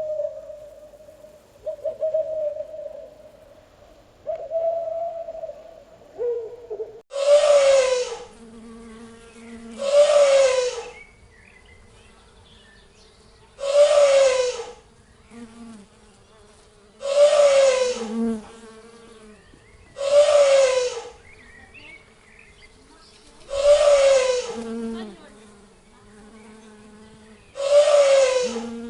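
Synthetic hornet-swarm buzzing: a steady hum, then from about seven seconds in, loud swells of buzzing that fall slightly in pitch and come about every three seconds.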